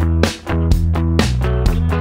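Background music with a steady beat over sustained chords.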